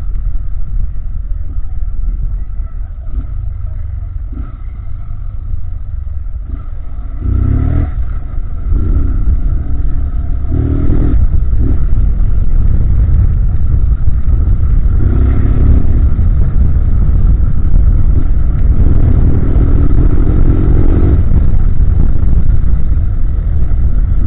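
Honda CG Titan 160's single-cylinder engine pulling through the gears while riding, revs climbing in several runs a few seconds apart, under heavy wind rumble on the microphone that grows louder as speed builds.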